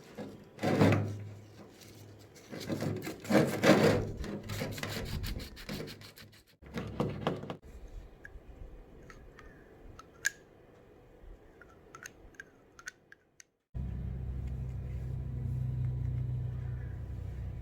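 Sandpaper rubbing rust off the steel governor shaft of a Wisconsin TJD engine, a run of scraping strokes, then a few light clicks. Near the end a steady low hum starts abruptly.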